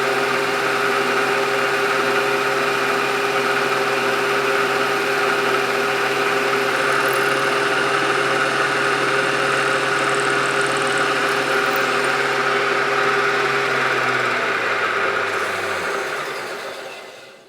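Machine tool running steadily while cutting oiled steel. Near the end the motor is switched off and winds down, its pitch sinking as it stops.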